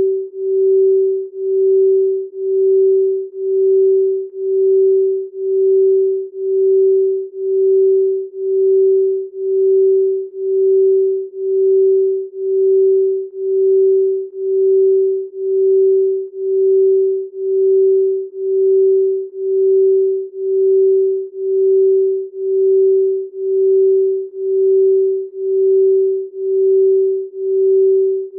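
Electronic pure sine tone at one steady, mid-low pitch, pulsing in volume about once a second: a chakra-balancing frequency tone.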